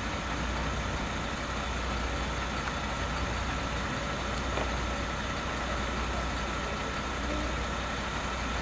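Fire engine's diesel engine idling: a steady low drone with a faint, even whine above it.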